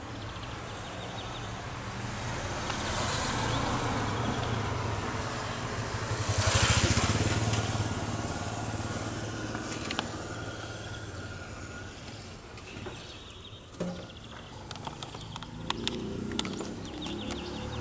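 A motor vehicle passing by, growing louder to a peak about six to seven seconds in and then fading away, over a steady low engine hum. A few clicks and knocks near the end.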